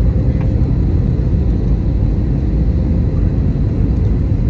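Cabin noise of an Airbus A320neo on final approach, heard at a window seat over the wing: a steady low rumble of its CFM LEAP-1A engines and rushing air, with a faint steady hum above it.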